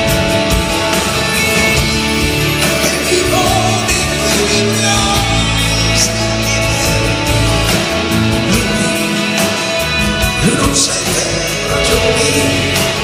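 Live rock band playing a song in a concert hall: electric guitars, bass, drum kit and keyboards, loud and unbroken.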